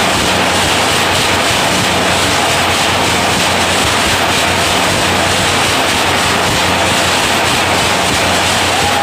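Automatic wire nail making machine running at speed: a loud, steady mechanical din over a low hum.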